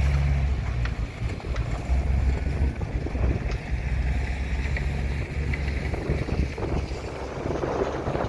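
Heavy diesel construction machinery running with a steady low rumble, with wind on the microphone.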